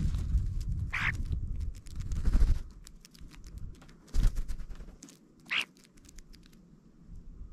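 European starlings at a seed pile in snow: wings fluttering close to the microphone, a short call about a second in and another about five and a half seconds in, and a run of quick pecking clicks at the seed in between.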